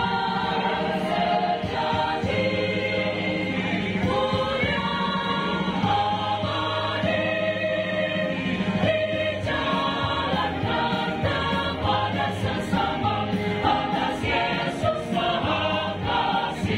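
Mixed choir of women and men singing together.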